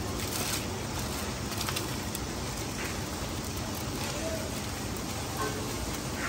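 Aluminium foil crinkling and crackling as a whole chicken is folded and wrapped in it for steaming. Scattered small crackles sit over a steady hiss.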